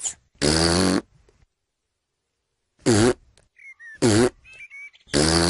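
A cartoon piglet blowing raspberries with his tongue out: four short buzzy blurts, the first and last longer than the two in between, with faint small sounds between them.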